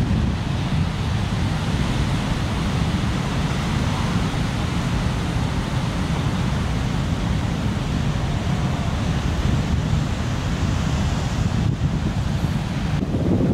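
Heavy ocean surf breaking and washing as a steady low noise, mixed with wind buffeting the microphone.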